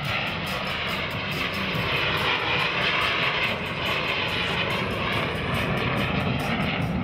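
Military jet engine noise from an aircraft flying an airshow pass: a steady rushing noise that swells a little in the middle and then eases.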